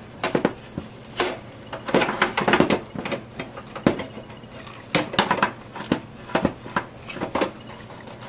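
Irregular sharp clicks, knocks and rattles of a desktop power supply unit being handled and pushed back into its bay in a small-form-factor computer case, with quick clusters of taps about two seconds in and again near five seconds.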